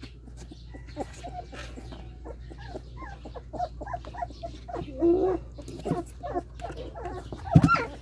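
18-day-old German Shepherd x Belgian shepherd puppies squeaking and whimpering in many short, high calls, with a louder whine about five seconds in. A sharp knock sounds near the end.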